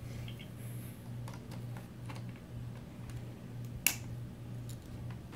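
Light clicks and taps of small plastic and metal RC differential parts being handled, with one sharp click about four seconds in, over a low hum that pulses about twice a second.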